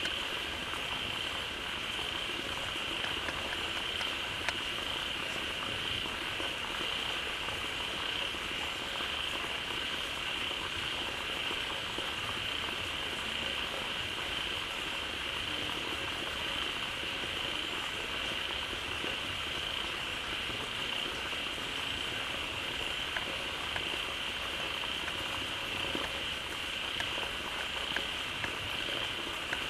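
Many frogs calling together in a dense, steady chorus at a pond, with a constant high drone running over it.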